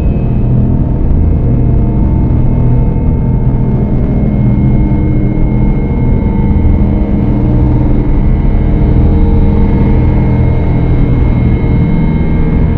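Dark ambient drone music: a loud, dense low rumbling noise with thin sustained tones held above it, slowly shifting.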